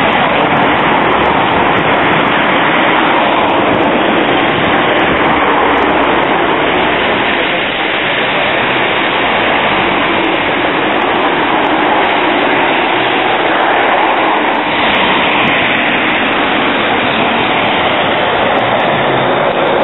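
Low-floor trams running on street track with city traffic: a steady, loud rushing noise of wheels and road, brightening a little about 15 seconds in.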